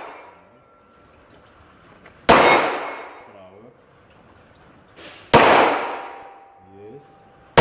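Pistol shots fired at steel plate targets, three about three seconds apart, the last at the very end; each sharp crack dies away over about a second and a half under the covered shooting bay. A thin ringing tone lingers after the shots, the steel plate ringing from a hit.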